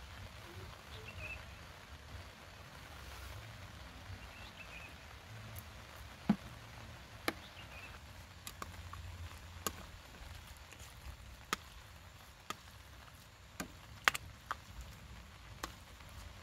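Stainless steel kitchen tongs clicking against the plates and the cooking pot while serving noodles. There is a low steady background rumble, and from about six seconds in roughly ten sharp, irregularly spaced clicks.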